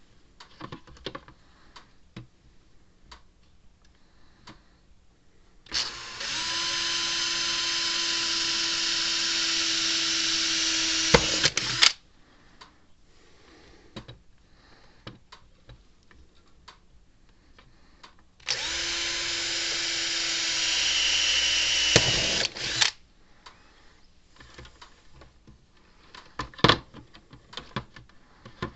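Handheld power drill drilling holes in two runs, about six seconds and then about four seconds long, each with a steady whine and a sharp knock just before it stops. Light clicks and handling noises come between the runs.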